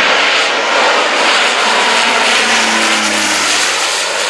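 Single-engine turboprop plane flying low overhead as it comes in to land, its engine and propeller noise loud and steady, with a low propeller hum standing out in the middle as it passes.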